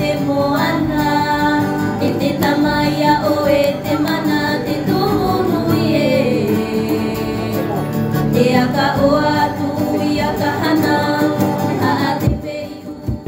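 Background music with a sung melody over a steady accompaniment, fading out near the end.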